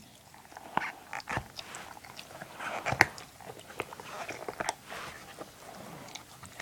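A dog chewing and tearing apart a squeaky toy: irregular crunching and gnawing clicks, the sharpest about three seconds in.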